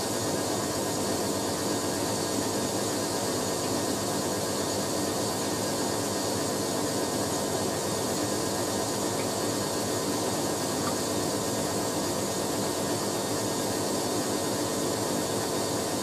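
Hoover A3060 Electronic 1100 front-loading washing machine spinning its drum at a steady high speed: an even rushing whine with steady tones in it, holding level throughout.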